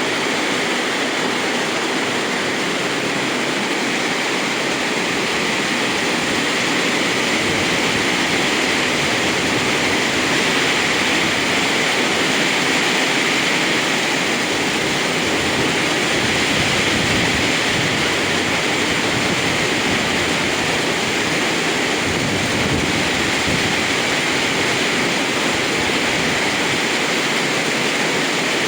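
Rain falling steadily, an even rushing noise without a break.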